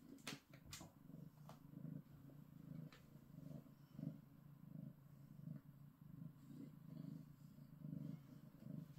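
Domestic cat purring softly in a steady, pulsing rhythm. A few faint clicks sound in the first second or so.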